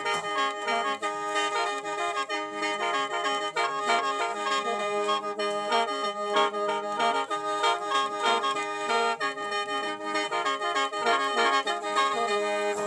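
Khaen, the bamboo free-reed mouth organ of Laos and Isan, playing a lively melody in the short mode (thang san) over a steady held drone, with quick rhythmic breath pulses.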